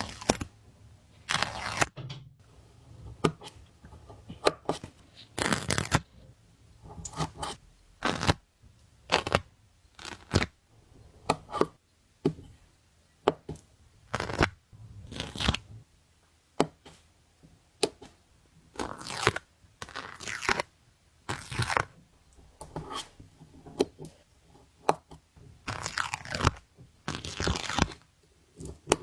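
Stickers being peeled off their backing sheet and handled one after another: a string of short crinkly rasps and sharp taps, roughly one a second.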